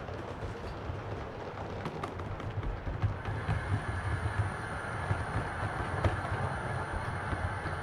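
7mm-scale model train, a Royal Scot 4-6-0 locomotive hauling coaches, rolling past on the track with a steady rumble of wheels and irregular clicks. A faint high whine joins about three seconds in.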